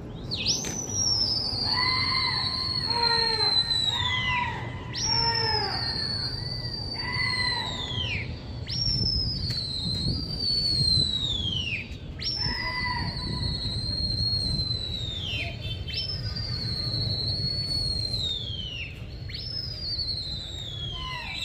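Loud, piercing signal whistles from pigeon fanciers working a flock of flying pigeons. Six long whistles come about every three and a half seconds, each shooting up sharply and then sliding slowly down, with shorter, lower whistle notes between them, over a low background rumble.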